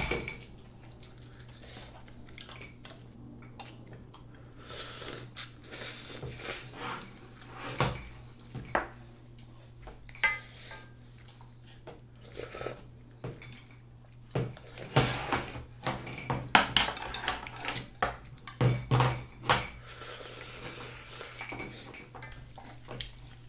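Eating sounds: chopsticks clicking and clinking against a stainless steel bowl and an enamelled pot as instant ramyun noodles are lifted and slurped, in scattered short clicks that grow busier and louder in the second half.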